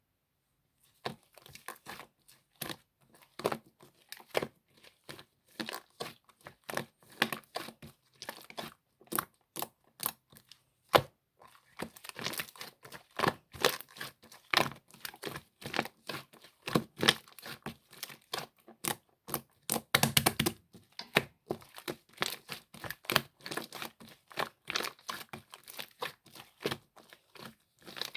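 Clear slime full of air bubbles being squished and pressed by hand, giving dense, irregular crackling clicks and pops. The sound starts about a second in.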